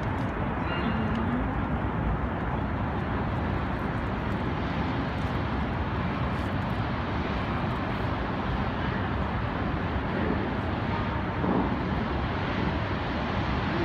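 Steady rushing outdoor noise with no clear tones, music or voices.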